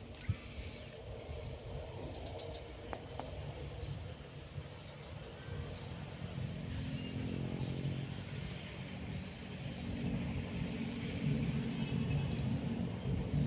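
Low engine hum of a motor vehicle, growing louder from about halfway, over a steady outdoor rumble with a thin high insect-like whine.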